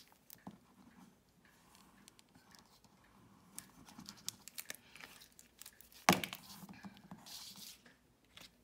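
Quiet handling of a cardstock panel on a craft mat while liquid glue is run over its back: faint scratches and small clicks, with one sharp tap about six seconds in.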